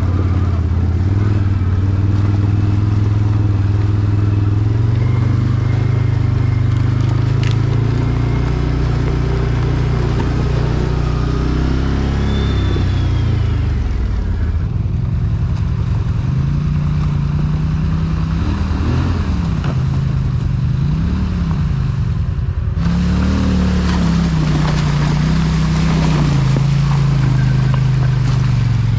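Quad engine running under load while driving through snow. It holds a steady note, then revs up and down twice about two-thirds of the way through.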